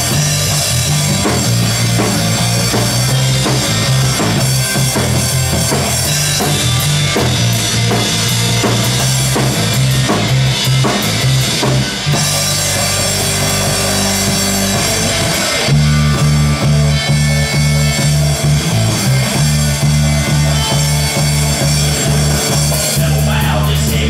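A live rock band plays an instrumental passage on electric guitar, electric bass and drum kit. About halfway the bass holds longer notes for a few seconds, then the band comes back in a little louder, with bass and kick drum hitting together.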